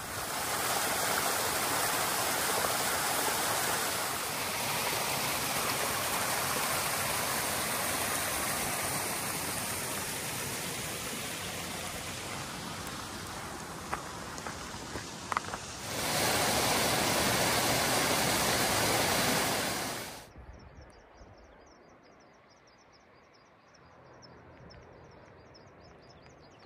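Rushing water of a mountain stream, a loud steady hiss, breaking off abruptly about 20 seconds in. It is followed by a much quieter stretch with a faint, fast, high-pitched ticking.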